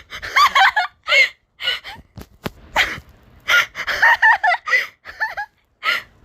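A person laughing hard in a string of short, pitch-bending bursts, with gasping breaths in between.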